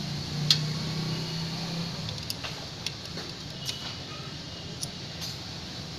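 Scattered metallic clicks and taps of tools and engine parts being handled during hand assembly, with a low steady hum for the first two seconds.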